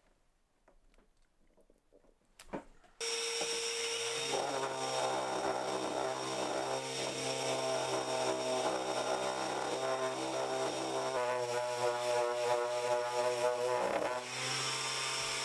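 Cordless random orbital sander and its dust extractor running on an oak mallet head: the machine noise starts suddenly about three seconds in, the sander's hum settles to a steady pitch, and everything cuts off abruptly near the end.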